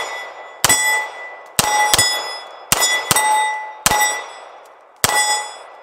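A Star BM9 9mm pistol firing seven shots at an uneven pace, two of them as quick doubles. Each shot is followed by the ring of a steel plate target, fading over about a second.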